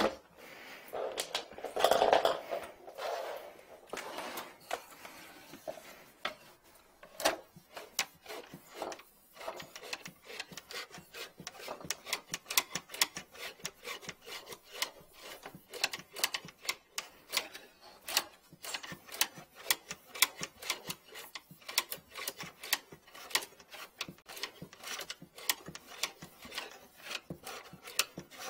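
Rapid, irregular clicking and rubbing as the yellow push cable of a drain inspection camera is fed by hand into the pipe, with a burst of rustling about two seconds in.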